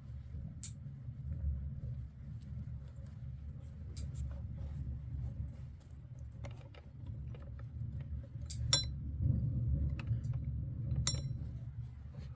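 Light clinks and taps of small hard objects, two of them ringing briefly near the end, over a steady low rumble.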